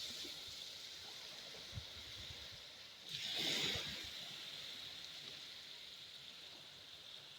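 Small waves washing onto a sandy beach: a steady hiss of surf, with one wave swelling and breaking about three seconds in, then easing back.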